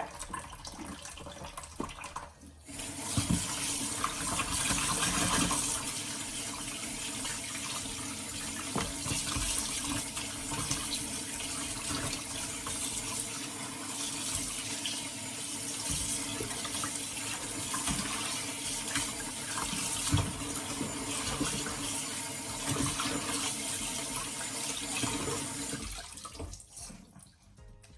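A kitchen tap running into a sink as a skinned whole chicken is rinsed under it, with occasional small knocks. The water comes on about two and a half seconds in and stops near the end.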